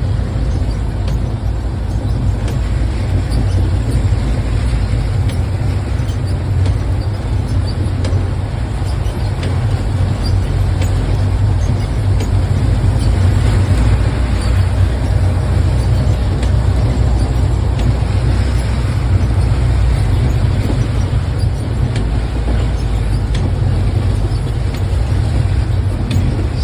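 Heavy rain with a car running: a steady rushing hiss over a deep, continuous rumble.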